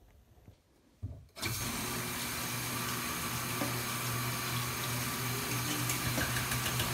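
Bathroom sink tap running, water pouring into the basin as an even rush, with a steady low hum underneath. It starts suddenly about a second and a half in, after a quiet start.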